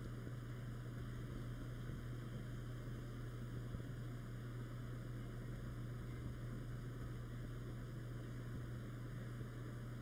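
Steady low hum with a faint hiss underneath: the background noise of the room and the recording, with no distinct event.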